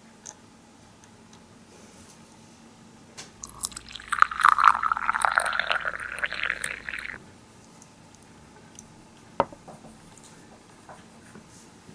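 Green tea poured from a miniature teapot into a tiny cup: a splashing pour lasting about four seconds, starting a few seconds in and cutting off suddenly. A single light click follows as the teapot is set down.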